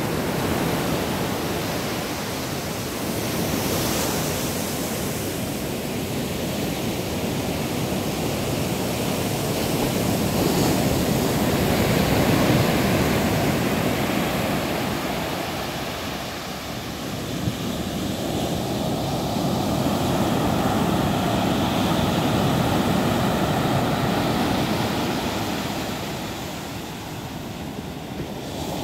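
Ocean surf breaking and washing up a beach: a steady roar of noise that swells and eases slowly over several seconds.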